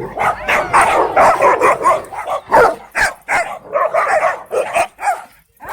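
Dogs barking and yipping in quick, overlapping bursts, with a short lull near the end.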